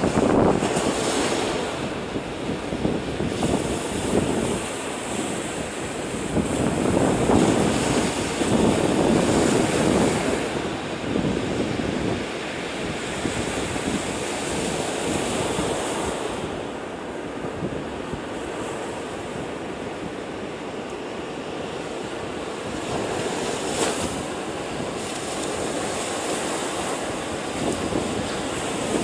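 Rough storm surf breaking and washing up a sandy beach, a continuous roar that swells and eases with each set of waves, loudest in the first third.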